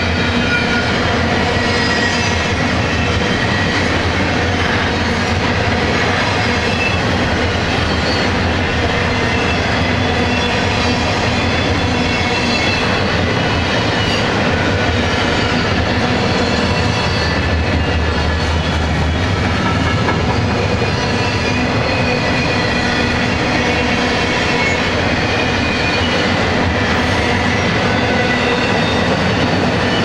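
Double-stack intermodal freight train's well cars rolling past: steel wheels running on the rails in a steady, loud noise, with faint high-pitched squeals from the wheels.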